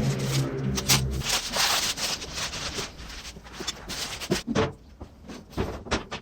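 Rubbing and scraping with scattered clicks and knocks, as of hands handling and scrubbing parts; a low hum fades out about a second in.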